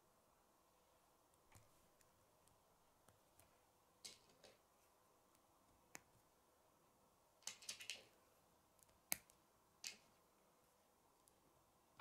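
Plastic K'nex pieces clicking and snapping together as they are fitted and handled: scattered sharp clicks, a quick run of them about two-thirds of the way in, and the loudest single click soon after.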